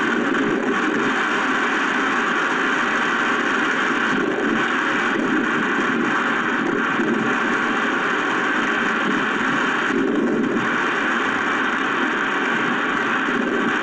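Steady, loud rushing hiss of wind-driven heavy rain in a storm, with no separate knocks or gusts standing out.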